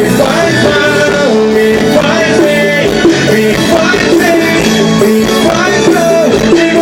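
Forró band playing live, a loud, steady stretch of amplified music with a melodic lead line over the rhythm.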